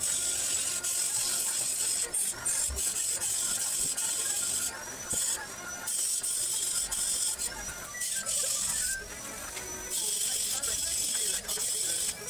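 Stick (arc) welding on galvanized tubular steel: the electrode arc crackles and sizzles in long runs, breaking off briefly a few times between about five and ten seconds in as the arc stops and is struck again.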